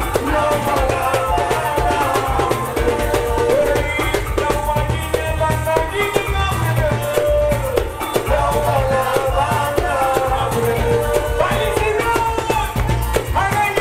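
Loud, upbeat Garifuna dance music from a live show: a sung vocal over a steady drum beat and heavy bass, played through a PA system.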